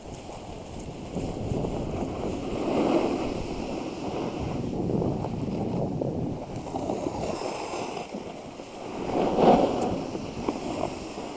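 Snowboard sliding and scraping over packed snow, mixed with wind buffeting the camera's microphone. The scraping swells about three seconds in and is loudest about nine and a half seconds in.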